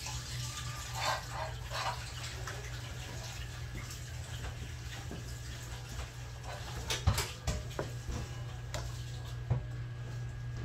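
Metal pastry blender cutting shortening into flour in a mixing bowl, with uneven scraping and occasional sharp knocks against the bowl, over a steady low hum.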